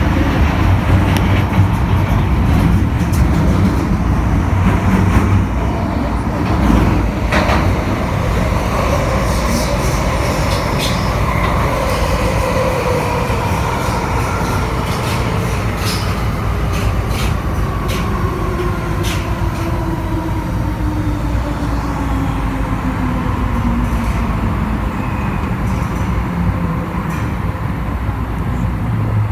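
MTR M-Train electric multiple unit running through a tunnel, heard from inside the car: a heavy rumble with scattered clicks from the wheels and track, and a traction motor whine that falls steadily in pitch as the train slows.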